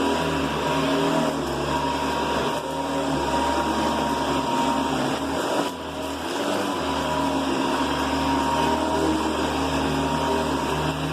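Hoover Convertible 4.8 amp upright vacuum cleaner running, its motor giving a steady high whine; the level dips briefly twice.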